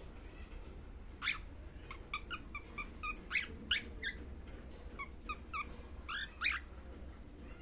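Baby cockatiel making a string of short, squeaky chirps, about a dozen over five seconds, some bending up or down in pitch, as it sleeps.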